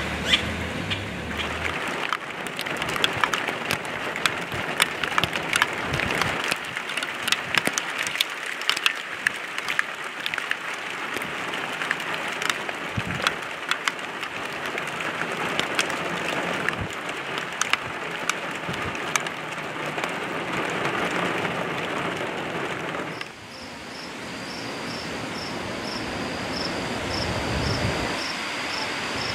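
Rain falling with a steady hiss and many close, sharp drop taps. About 23 seconds in, the sound cuts to a quieter, gradually building rain hiss, with crickets chirping in an even pulse of about two chirps a second.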